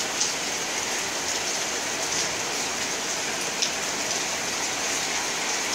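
Steady rain falling, an even hiss, with a couple of faint clicks.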